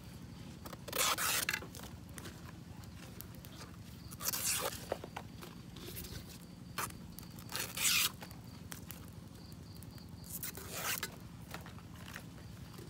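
Fresh banana leaves rustling and crinkling as they are handled and pressed into a clay pot, in about four short scratchy bursts a few seconds apart.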